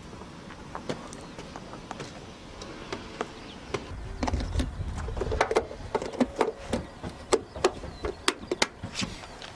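Scattered clicks of keys on a rugged laptop keyboard. About four seconds in, a low rumble sets in with a denser, irregular run of sharp clicks and taps as a hand tool works against an Apache helicopter's fuselage panel.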